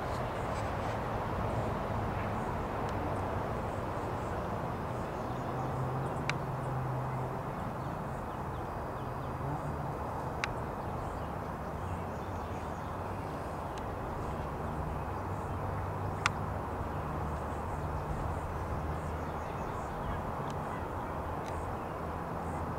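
Crows cawing now and then over a steady outdoor background with a low hum and faint high bird chirps. Three sharp clicks stand out along the way.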